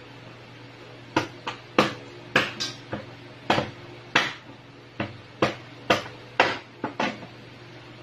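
Meat cleaver chopping crab on a plastic cutting board: a run of about fifteen sharp chops, some close together, starting about a second in.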